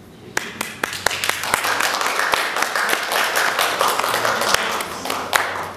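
A small group of people applauding, starting about a third of a second in and dying away near the end.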